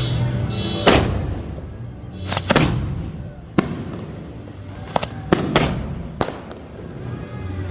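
Fireworks exploding in a string of sharp bangs, about eight in seven seconds at uneven intervals, some with a short echo after.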